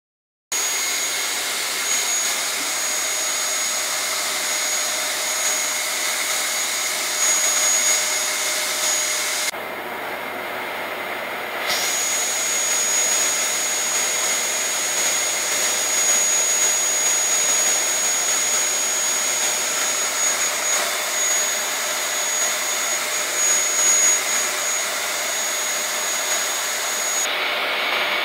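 Vacuum cleaner running steadily: an even rushing whir with a thin high whine, starting abruptly about half a second in. The high hiss dulls for about two seconds around ten seconds in and again near the end.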